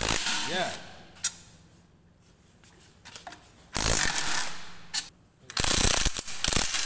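Cordless impact driver running in three short bursts, undoing the bolts of an automatic transmission case.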